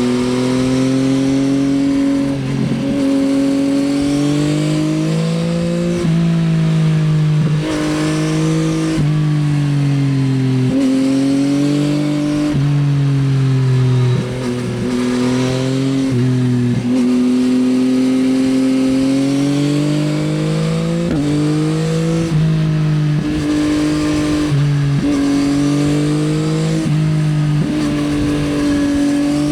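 Yamaha XSR900's three-cylinder CP3 engine breathing through an Akrapovič Racing Line exhaust, revving up and down under riding. Its pitch rises and falls repeatedly, with sudden breaks every couple of seconds as it shifts gears.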